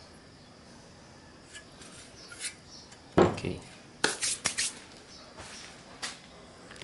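A heavy thud as an electric motor's stator housing is set down on a wooden workbench, followed by a quick run of sharp metallic clinks and one more click a couple of seconds later.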